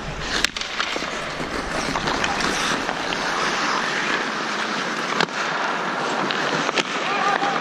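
Ice hockey play heard from a camera worn by the skating referee: a steady rush of skate blades on ice and wind on the microphone, with sharp clacks of sticks and puck, the first about half a second in at the faceoff and a few more later.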